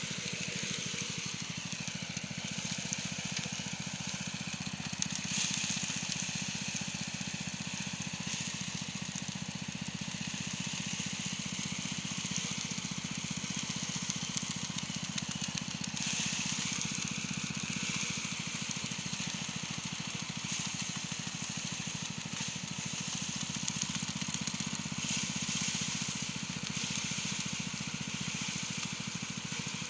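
Small engine-driven farm machine running steadily without change, a fast even engine rhythm under a hiss.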